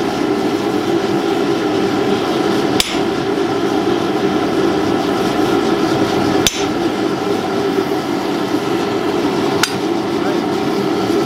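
Hand hammer striking a red-hot sword blade on an anvil: three single blows about three seconds apart, each with a short metallic ring, over a steady drone.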